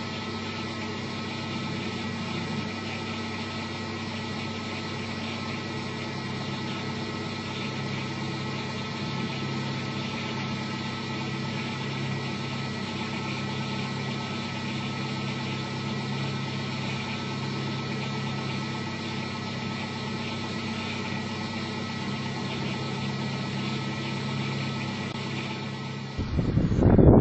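Engine of a stopped off-road 4x4 idling steadily, an even hum that cuts off near the end.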